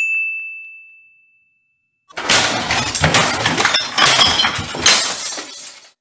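A single high ding sound effect that fades over about two seconds. About two seconds in, loud crashing and banging starts and runs on as a man smashes things in a room with a stick.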